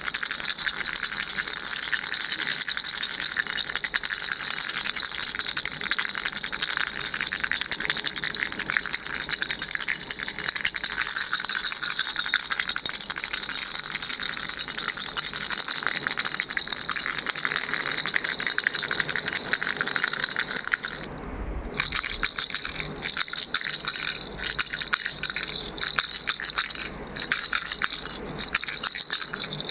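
Baby rattle being shaken steadily, its loose beads clattering in a dense stream. About two-thirds of the way through it stops briefly, then resumes in shorter, broken shakes.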